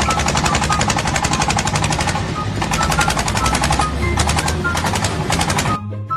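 Rapid mechanical hammering, many blows a second in a steady run, stopping shortly before the end.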